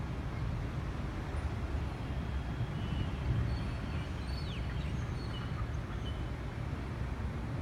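Steady low rumble of outdoor background noise, with a few faint, high, short chirps and one quick falling whistle of birds in the middle.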